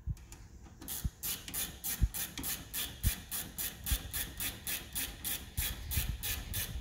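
Ratcheting wrench clicking in a quick, even rhythm of about five clicks a second as a rear brake caliper bolt is run in, with a few dull knocks.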